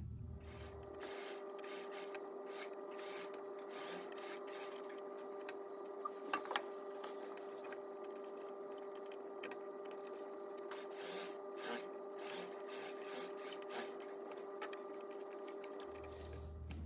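Industrial sewing machine's motor humming steadily while the broken needle is being replaced, with small metal clicks and taps from working the needle clamp, several of them together about six seconds in.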